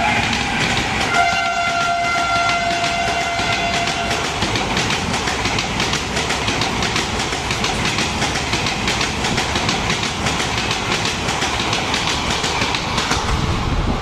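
Passenger coaches racing past, wheels clattering fast and without a break over the rail joints. From about one to four seconds in, the train's WAG-5 electric locomotive sounds a steady horn.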